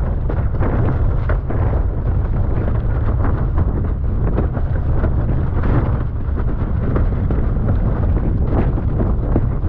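Strong wind buffeting the microphone of an action camera mounted on a windsurf rig, over the rush of water and spray as the board planes at speed. The noise is loud and steady, with many short splashy bursts.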